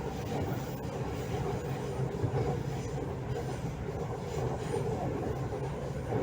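Delhi Metro train running between stations: a steady rumble of wheels and running gear, heard inside the coach, with a few faint clicks.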